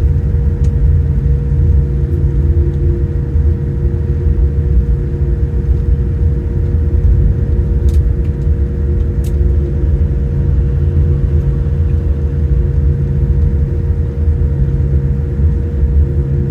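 Steady low rumble and hum inside the cabin of a Boeing 787-9 airliner on the ground, from its engines and airframe, with a couple of faint clicks about eight and nine seconds in.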